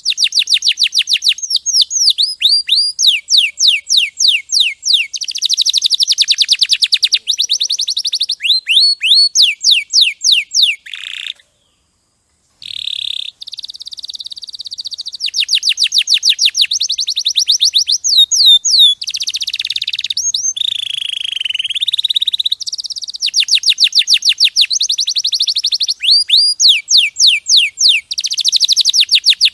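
Domestic canary singing: long rolling trills of rapidly repeated notes, many of them quick sweeping whistles, changing from one trill to the next. The song breaks off for about a second a little past the middle, then carries on.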